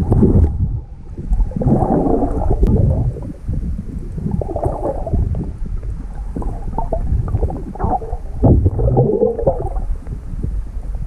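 Muffled, uneven rumbling and gurgling of water picked up underwater by a GoPro in its waterproof housing, stirred by a swimmer's movements.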